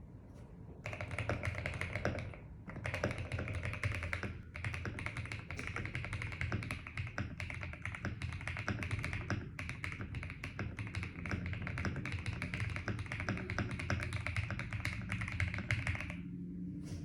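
Fast continuous typing on a CIY Gas67 65% mechanical keyboard with lubed KTT Rose linear switches and Analog keycaps, foam-modded with Holee-modded stabilizers: a dense run of key presses that starts about a second in, pauses briefly twice, and stops shortly before the end, over a steady low hum.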